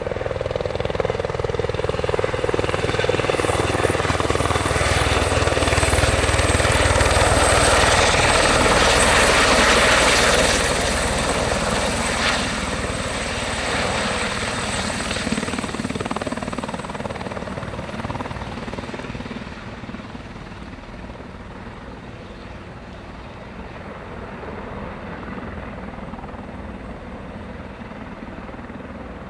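Eurocopter EC130 B4 helicopter landing: its turbine and rotors are heard with a high whine, growing louder to a peak as it comes in close. The sound then eases off as it hovers low over the pad, and the high whine fades out after about twenty seconds.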